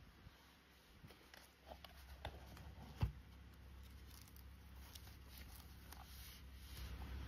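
Faint handling sounds of a laser level being slipped into a fabric pouch and the flap folded shut: light rustling and small clicks, with one soft knock about three seconds in.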